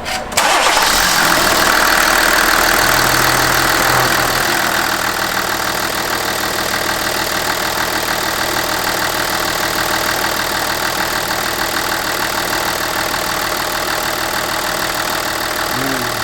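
Hyundai Veracruz V6 engine starting, running at a raised idle for about four seconds, then settling to a steady idle. There is no metallic squeal from the belt side: the noise came from a faulty alternator with an internal bearing problem.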